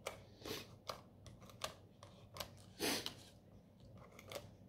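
Paper crafting handling sounds: a glue tape runner and card stock being worked by hand, giving a series of soft clicks and taps with one slightly longer stroke just under three seconds in.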